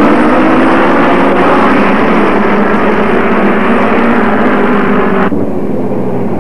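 Several model racing cars' small two-stroke glow engines buzzing at high revs, their pitches sliding up and down against one another as the cars race. About five seconds in, the sound suddenly turns duller and lower.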